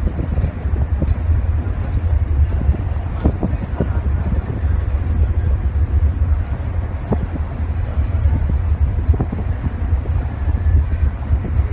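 Steady low rumble of wind on the microphone mixed with the running noise of the KM Labobar, a large passenger ship, at sea, with a few faint knocks now and then.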